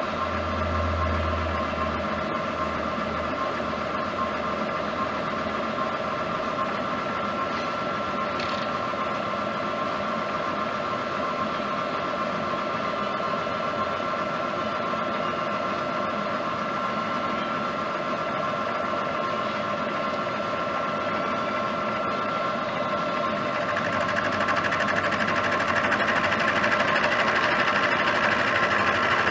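Milling machine running steadily with a steady whine, cutting a hole deeper in a pedal lever. About three quarters of the way through, the cut gets louder and harsher.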